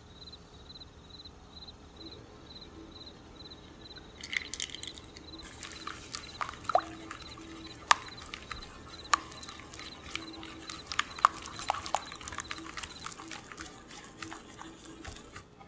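Quiet for the first few seconds. Then, about four seconds in, vegetable oil is poured into egg yolk batter, and a silicone whisk stirs the batter in a glass bowl, with small wet sounds and scattered sharp clicks of the whisk against the glass.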